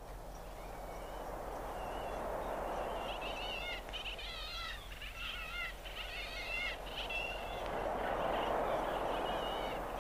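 Opening of an experimental 1970s album track: a rushing wash of noise with quick, warbling, bird-like chirps above it that thicken after a couple of seconds.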